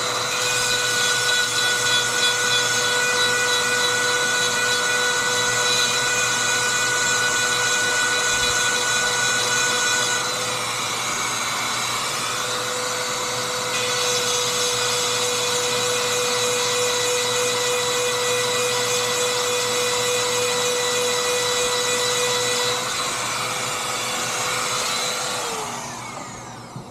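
Dremel rotary tool running at a steady high whine while grinding chainsaw chain teeth. The grinding changes and drops a little in level for a few seconds partway through, then resumes, and near the end the motor winds down with a falling pitch.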